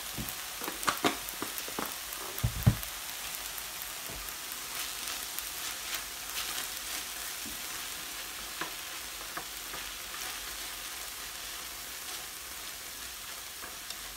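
Ground pork and wood ear mushroom filling sizzling steadily in a frying pan while being stirred with chopsticks. A few sharp knocks of the chopsticks on the pan come in the first three seconds, the loudest about two and a half seconds in.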